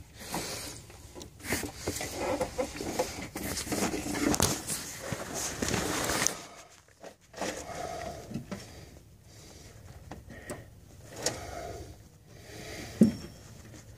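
Close handling noise, with rustling, scraping and light knocks as fingers move over the camera. It is busy for the first six seconds and sparser after.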